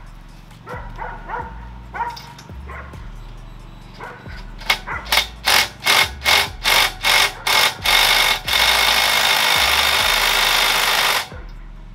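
Impact wrench working a wheel lug nut: about nine short blips of hammering, then held on for nearly three seconds before it cuts off suddenly.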